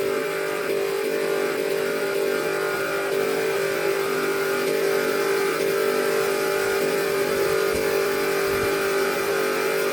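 Car engine running steadily at a held speed.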